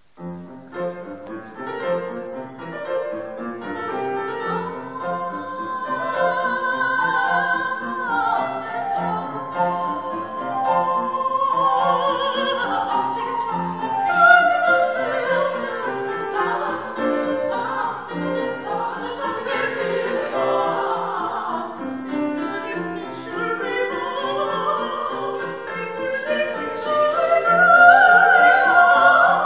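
Female classical singing in operatic style, with wide vibrato, accompanied by a grand piano. The piano enters at the start with repeated chords, and the voice comes in about four seconds later, swelling loudest near the end.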